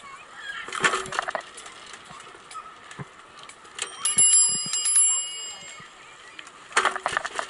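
Bicycle bell rung with a quick run of strikes about four seconds in, its tones ringing on for about a second and a half. Two shorter bursts of knocking and rattling come about a second in and near the end.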